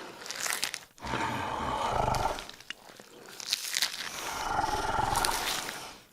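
Dinosaur sound effect: two long, rasping roars, the first about a second in and the second starting a little past the midpoint, each with a deep rumble beneath, after a shorter growl at the start.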